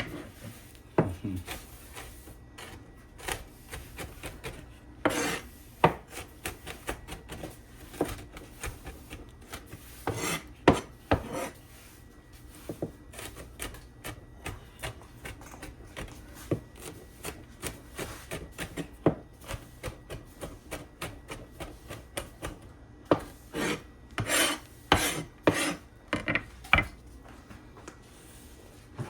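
Broom sweeping a kitchen floor: irregular rasping, scraping strokes, with louder bunches of strokes about five seconds in, about ten seconds in and in the last few seconds.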